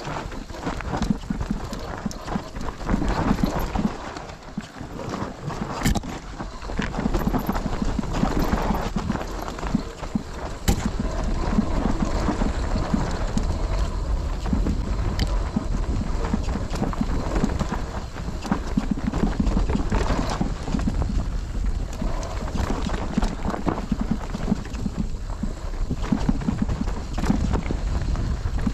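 Mountain bike riding down a rough bike-park trail: a continuous, uneven rattle of tyres over dirt and stones, with the chain and frame clattering over a low rumble. There are two sharp knocks, about six and eleven seconds in.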